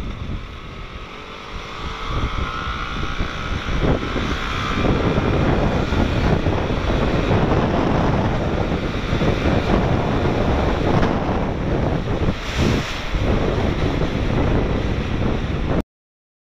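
Heavy wind buffeting on the microphone while riding a Yamaha NVX scooter at speed, with the rush of the ride and traffic under it; it grows louder a couple of seconds in and cuts off suddenly near the end.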